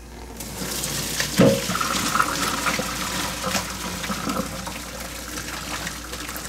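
Hot pasta cooking water pouring from a pan into a plastic colander in a stainless steel sink, splashing and draining away. It starts about half a second in and slowly eases off, with one knock about a second and a half in.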